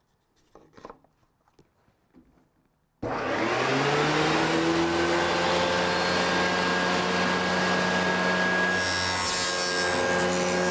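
Table saw with a stacked dado blade set switched on about three seconds in, the motor spinning up to a steady whine, a few light knocks of wood on the jig before it. From about nine seconds in, the dado blades cut a box-joint notch through a plywood test piece, adding a brighter hiss over the motor.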